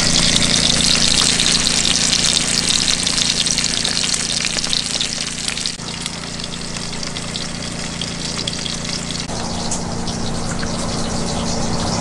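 Bacon sizzling and crackling in a cast iron skillet on a Coleman 424 dual-fuel two-burner camp stove, under a steady low hum. The sizzle is strongest for the first half and grows fainter after about six seconds.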